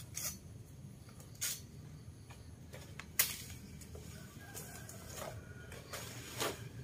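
A machete chopping into a banana plant's stem: about six separate strikes at irregular intervals, the loudest about three seconds in.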